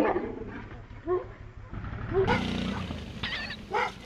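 A dog barking several times at a moving motorcycle, with the motorcycle's engine running underneath and growing louder from about two seconds in.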